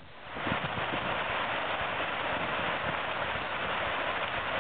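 Fast-flowing creek rushing past rocks and logs, a steady hiss that fades in over the first half second. A sharp click right at the end.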